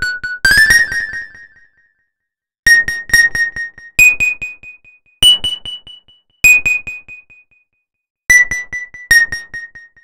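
About ten single high notes from a keyboard or electric-piano preset in FL Studio Mobile, played one at a time with silent gaps between them. Each note starts sharply and fades quickly. They form a simple melody: three repeated notes, then rising higher and falling back.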